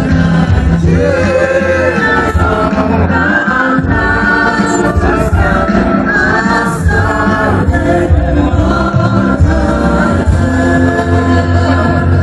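Gospel-style music with a choir singing over steady bass notes.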